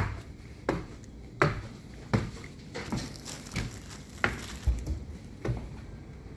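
A series of short, sharp knocks or taps, roughly one every three-quarters of a second, over a low steady background.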